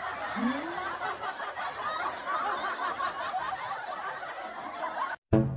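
Many voices laughing and chuckling together at once, like a crowd laugh track. Just before the end it cuts off briefly and music begins.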